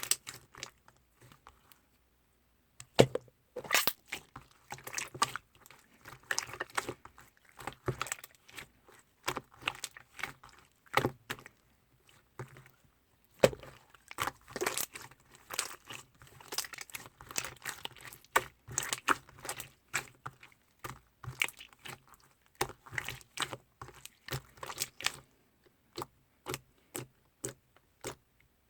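Two-tone clear slime being squeezed and stretched by hand, making irregular sticky clicks and small pops, with a couple of brief pauses.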